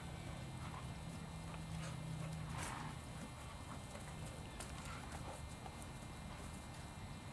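Doberman pinscher puppies scuffling in rough play on grass: scattered soft thuds and scuffs of paws, the strongest about two and a half seconds in, over a steady low hum.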